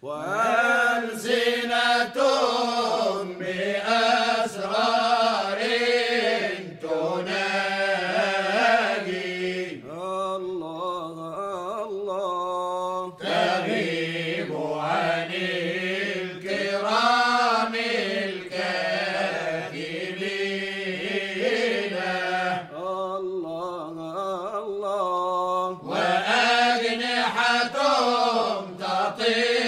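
Sufi chant from Cairo: voices chanting long melodic phrases that rise and fall.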